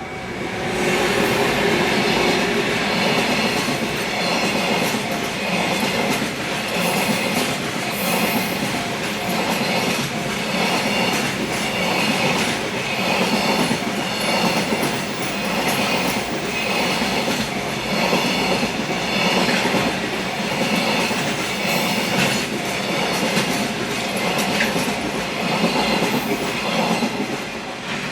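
Long freight train hauled by an EF510 electric locomotive passing a level crossing: a loud, continuous run of wagon wheels clattering over the rail joints in a steady rhythm. It comes in suddenly within the first second and drops away near the end.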